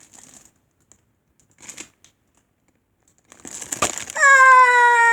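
Soft, scattered rustling and crinkling of squishy toys being handled, then, about four seconds in, a long, loud, high-pitched "Ah!" from a child, held steady and dropping in pitch as it ends.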